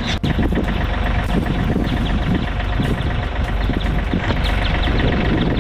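Compact tractor engine running steadily while the tractor drags a rear scraper blade.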